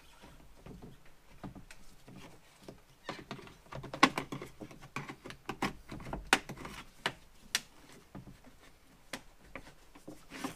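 Plastic clips of a door trim strip on a BMW E39 rear door snapping loose as the strip is pried off: a string of sharp clicks and snaps, loudest about four seconds in, after a few seconds of quiet rubbing.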